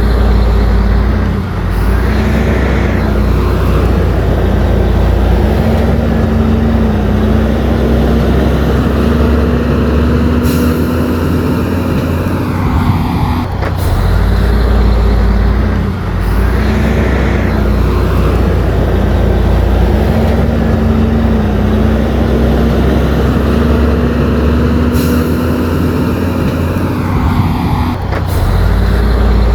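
Heavy diesel earthmoving machinery running loudly and steadily. The engine note drops about halfway through and again near the end, and the same cycle repeats roughly every 14 seconds.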